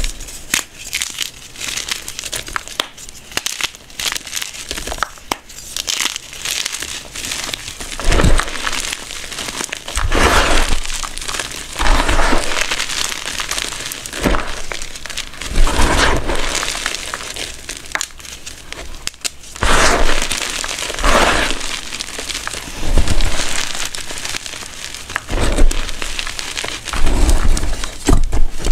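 Blocks of gym chalk crushed and squeezed by hand in a bowl of loose chalk powder: a steady fine crunching and crackling. From about a third of the way in, louder crunches come every two seconds or so as each handful is squeezed.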